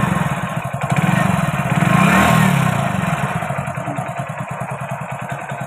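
Hero Splendor BS6 motorcycle's single-cylinder engine idling, revved up once with the throttle about two seconds in, then dropping back to a steady idle.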